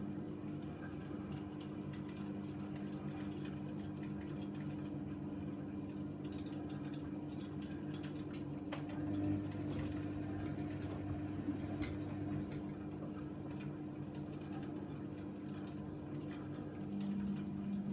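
Hoover Nextra 6 washing machine running mid-cycle: a steady motor hum with water moving inside the machine.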